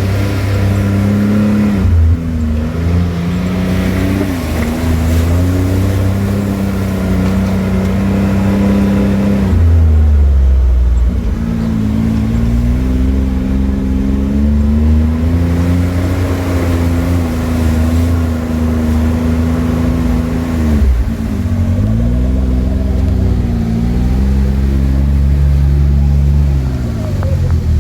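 Can-Am Maverick X3 side-by-side's turbocharged three-cylinder engine revving up and down over and over while driving rough off-road terrain in four-wheel drive, with sharp drops in revs about ten seconds in and again past twenty seconds.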